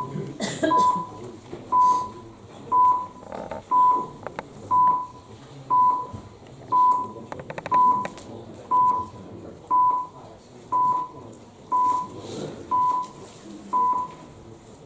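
Electronic voting system's countdown beeping once a second: about fifteen short, identical high beeps that stop as the voting time runs out. A quick run of clicks falls about halfway through, over a low murmur in the hall.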